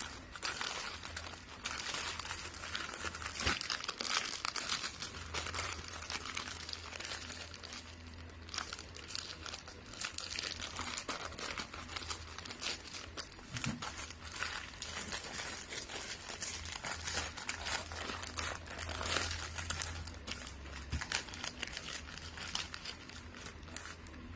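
Gift wrapping paper being handled, folded and crumpled, a steady crinkling with many sharp crackles throughout.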